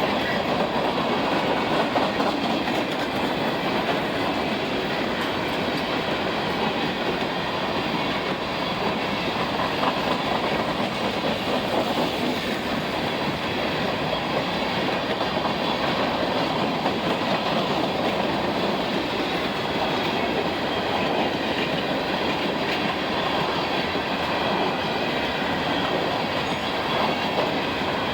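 Freight train's grain and ballast hopper cars rolling past at steady speed: a continuous rumble of wheels on rail with a dense clatter of clicks and knocks.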